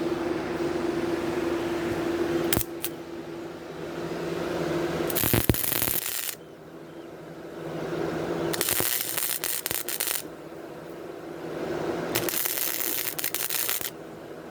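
Gasless flux-core wire welder laying three short welds, each a one-to-two-second burst of crackling, spattering hiss.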